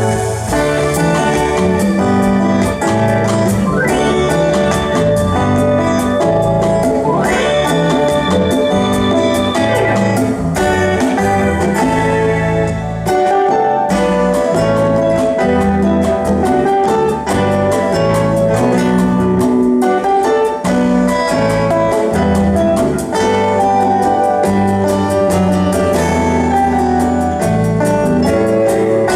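Live band playing an instrumental piece, with drums, bass and sustained keyboard-like chords. A lead line slides up in pitch twice early on and holds a high note for a couple of seconds.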